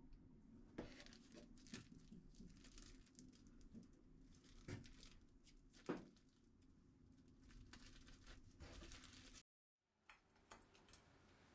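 Plastic cling film crinkling faintly as it is pulled and folded tightly around a sandwich, with small handling clicks. It cuts off suddenly about nine seconds in.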